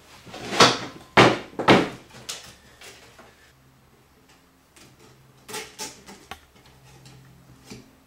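Stripped copper wire being handled on a wooden workbench: three loud scraping strokes in the first two seconds as the strands are pulled across the board. Then softer rustles and small clicks as the bundle of copper strands is twisted by hand.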